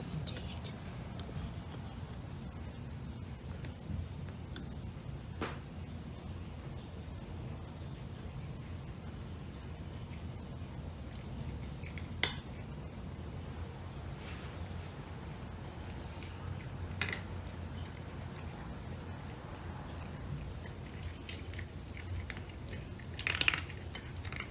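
A cat eating dry kibble from a bowl, with a short burst of crunching about 23 seconds in and a few single clicks earlier. A steady high-pitched tone and a low hum run underneath.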